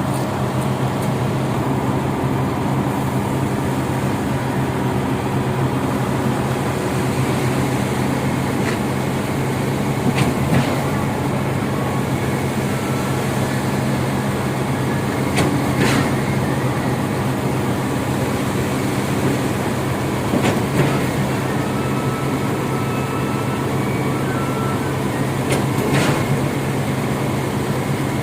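Heavy truck diesel engine running steadily at a concrete pour, with a few sharp knocks every several seconds.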